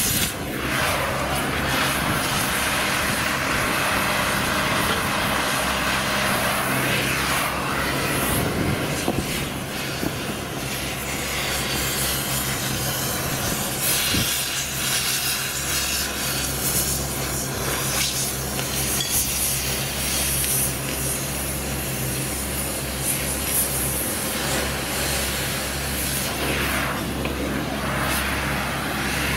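Gas cutting torch hissing steadily as it cuts through a steel rail, over the low steady hum of an idling engine.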